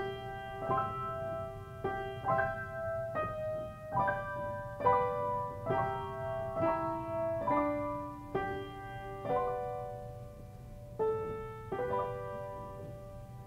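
Solo piano playing a slow, gentle melody, with notes and chords struck about once a second and left to ring, as silent-film-style accompaniment.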